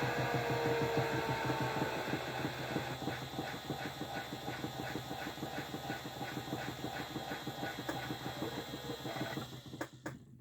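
Toy washing machine's small electric motor running and turning the drum, winding down with a falling whine and a regular rhythmic clatter, then stopping shortly before the end.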